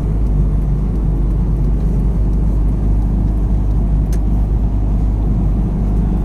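Steady low engine and road rumble inside a moving H2B (H22-swapped) Honda Civic on a test drive, with one short click about four seconds in.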